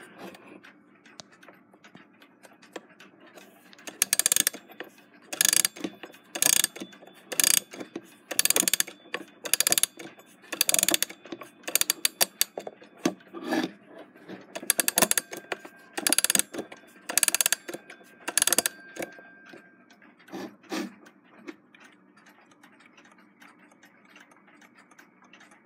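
Winding keys of a German F. Mauthe Big Ben clone alarm clock being turned to wind its mainsprings, each turn a quick run of ratchet clicks, about one turn a second through the middle stretch. Near the end the wound clock ticks faintly.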